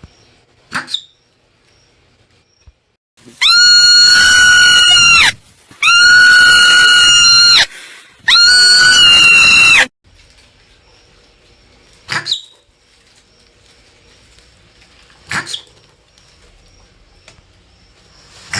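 Marmot screaming: three long, loud calls of nearly two seconds each, held on one pitch, with short sharp chirps before and after.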